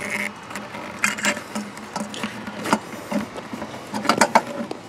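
Irregular light clicks, taps and rubbing as the plastic thermostat housing on its rubber coolant hose is handled and worked back into place, with a quick cluster of clicks about four seconds in.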